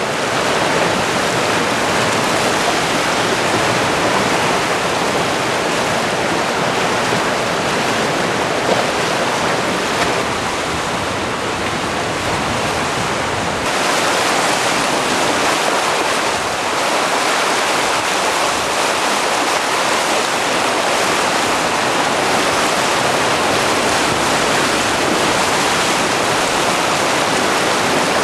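River rapids rushing and churning: a loud, steady roar of whitewater close to the microphone.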